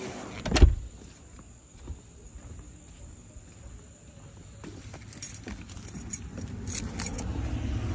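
A door bangs shut with one sharp thud about half a second in. Footsteps on wooden deck boards and steps follow, and car keys jingle in the hand in several quick clicks over the second half.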